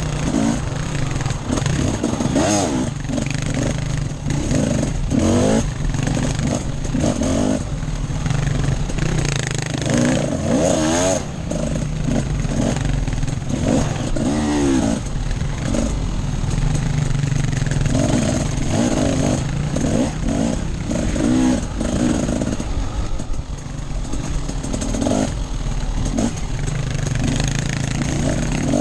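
Off-road enduro motorcycle engine on a ride, revving up and falling back over and over as the throttle is opened and closed, with the pitch rising and dropping every second or two.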